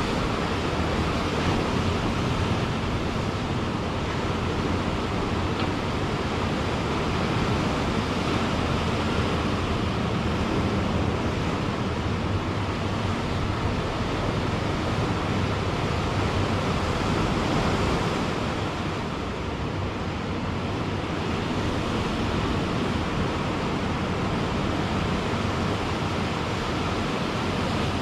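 Ocean surf breaking and washing in, a steady rush of noise that eases slightly about two-thirds of the way through.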